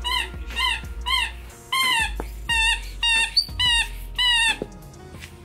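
Dog whining in a rapid series of short, high-pitched cries, each rising and falling in pitch, about two or three a second.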